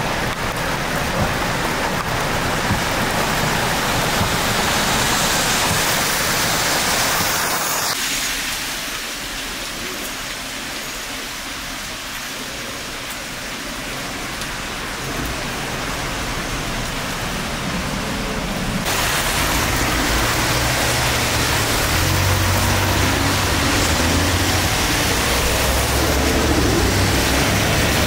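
Steady rain falling on a city street, with car tyres hissing on the wet pavement and engines passing. About 8 seconds in it drops to a quieter, thinner rain hiss. From about 19 seconds a louder low rumble of vehicles driving by on the wet road joins it.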